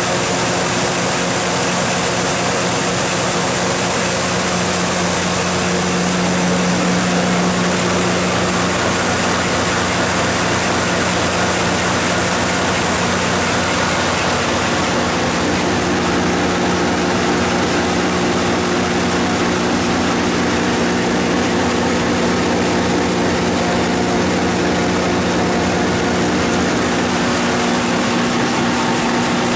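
The Cummins GTA14G1 turbocharged natural-gas inline-six engine of a 250 kW standby generator set, running at a constant governed speed. It makes a steady, unchanging engine drone with a hum and hiss over it.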